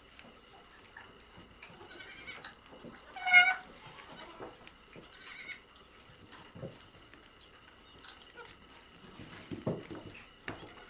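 Newborn African pygmy goat kids bleating in short, high, thin cries. The loudest and clearest comes about three seconds in, with a few fainter ones around it, over soft shuffling in the straw.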